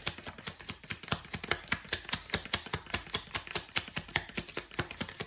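Rapid, even clicking, about eight to ten sharp clicks a second.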